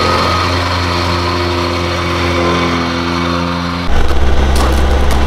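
Vibratory plate compactor's engine running steadily as it compacts gravel fill. About four seconds in, it cuts abruptly to a louder, deeper engine drone.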